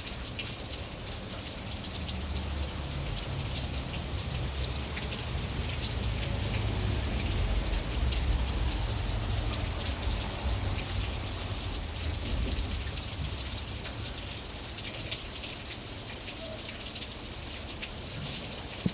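Heavy rain pouring steadily, the drops ticking on surfaces, with a low rumble swelling in the middle.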